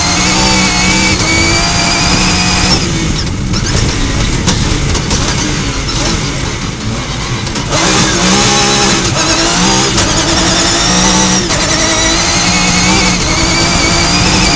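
Off-road rally car's engine heard from inside the cockpit, running hard. About three seconds in, the driver lifts off for a few seconds and the engine note fades under gravel and tyre noise. Near the middle the car accelerates hard again, the revs climbing and dropping with each upshift.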